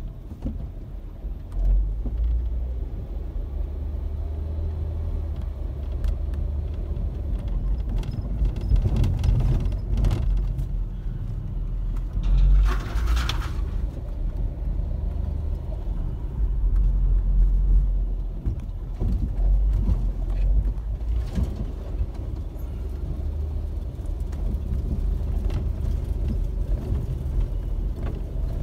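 Minivan cabin road noise on a rough dirt road: a steady low rumble with scattered knocks and rattles over bumps, and a brief hiss about halfway through as the van splashes through a puddle.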